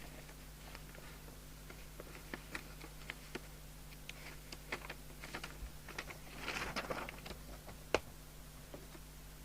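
Scattered light clicks and taps of small handling, with a brief rustle about two thirds of the way through and one sharper click near the end, over a steady low electrical hum.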